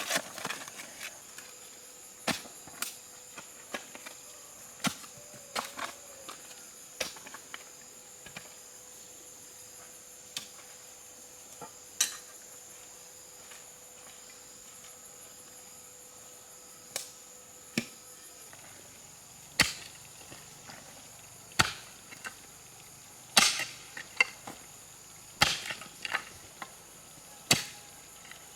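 Irregular sharp chopping strikes of a hand tool, a few seconds apart at first and coming more often in the second half. Under them runs a steady high buzz of crickets or other insects.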